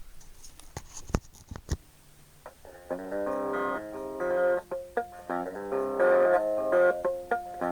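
Guitar in an alternate tuning, played flat on the lap and picked with the thumb. A few sharp clicks come first, then about three seconds in a riff of ringing notes and chords begins and carries on.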